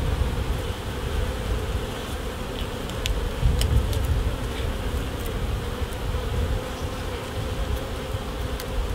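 Honeybees humming steadily over an open hive during an inspection of a gentle colony, over a low rumble, with a few faint clicks as frames are handled.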